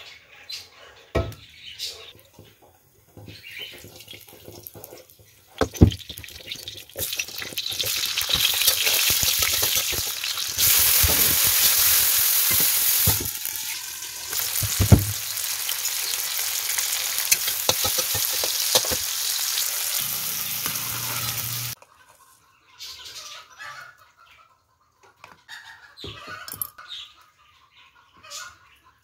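Tomatoes, chillies, shallots and garlic sizzling in hot oil in a wok under a glass lid, a loud steady hiss that cuts off suddenly about two-thirds of the way through. A few sharp utensil knocks come before and during it.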